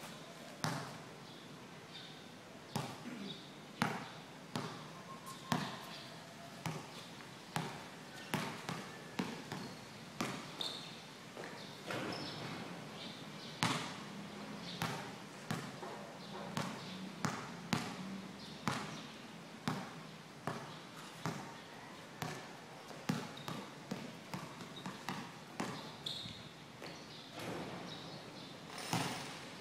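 Basketball dribbled on a concrete court under a roof: a series of uneven bounces, roughly one or two a second, each with a short echo.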